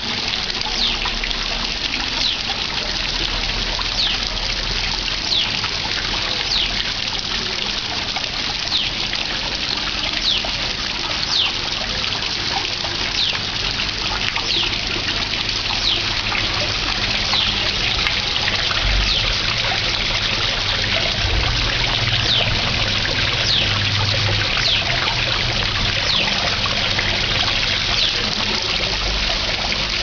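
Small garden fountain jets splashing and trickling into shallow pools, a steady water sound. Over it, a bird gives a short high chirp every second or so.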